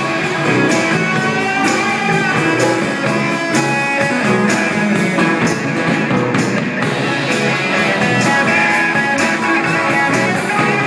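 Live amateur rock band playing: electric guitars, keyboard and a drum kit, with a steady drum beat under sustained guitar and keyboard notes.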